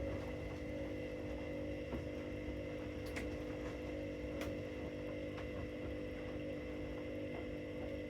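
Washing machines running mid-cycle: a steady motor hum with several fixed tones, and a few faint clicks about three and four and a half seconds in.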